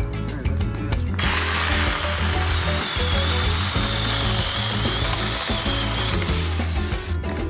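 Saker mini cordless electric chainsaw running, with a wavering high whine over a dense rattling hiss from the chain, starting about a second in and cutting off near the end. Background music plays throughout.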